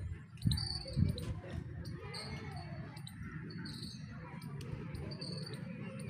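Short high chirps repeating every half second to a second over a steady low rumble, with two dull thumps about half a second and a second in.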